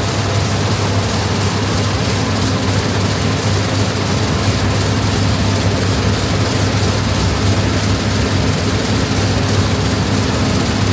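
Combine harvester running steadily at work: a constant low engine hum under an even rushing hiss.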